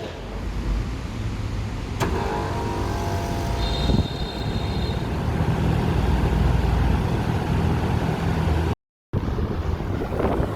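Daikin RR140DXY1A4 air conditioner starting up. A sharp click about two seconds in is followed by the unit's motors coming on with a mix of steady tones. A strong low hum builds a few seconds later and settles into steady running.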